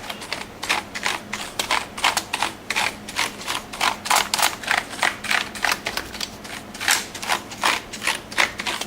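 A brush scrubbing across a computer keyboard to loosen dust between the keys: quick back-and-forth strokes, about three or four a second, each a short swish of bristles with a light clatter from the keycaps.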